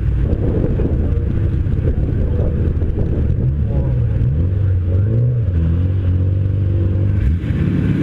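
Hillclimb race car's engine running while the car sits stationary, idling with its pitch stepping up and down as it is revved in short blips, heard close up with a noisy haze over the microphone.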